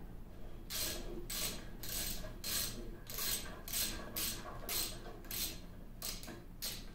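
Socket ratchet wrench working a bolt on a lathe apron, with a short ratcheting rasp on each back-swing about twice a second, as the bolt is turned out.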